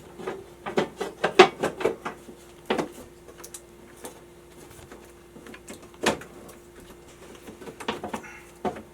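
Sharp clicks and knocks of handling at an electrical subpanel, a quick run of them at the start, then a few single knocks later, over a faint steady hum.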